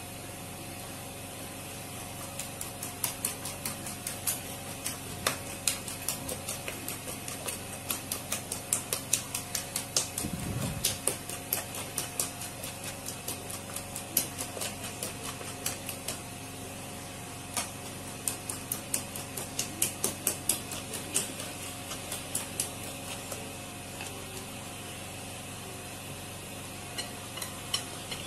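A fork beating eggs and sugar in a ceramic plate: quick clicks of the fork against the plate, about three a second, in runs with short breaks. A steady faint hum sits underneath.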